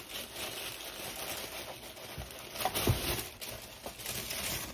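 Paper packaging rustling as items are handled out of a subscription box, with a single low thump about three seconds in.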